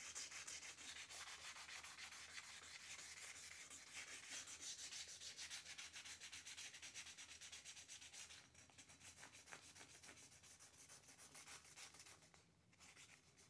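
Faint, quick rubbing strokes by hand along the chrome quarter-window frame and its rubber seal channel, fading to a few scattered scrapes after about eight seconds.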